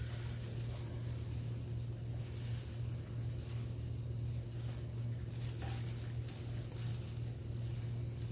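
A steady low hum, with faint, irregular scraping as a butter knife digs nut butter out of a jar.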